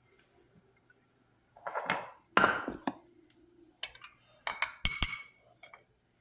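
Kitchen clatter of dishes and utensils being handled: two short scraping, shuffling sounds, then a few sharp metallic clinks with a brief bright ring about halfway through.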